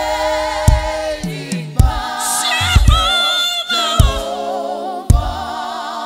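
Live gospel music: a choir singing sustained notes with vibrato over a band, with a kick drum striking roughly once a second.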